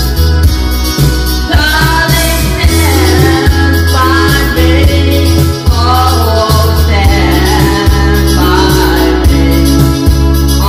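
A man singing into a microphone over loud backing music with a steady, heavy bass beat. His voice comes in about a second and a half in.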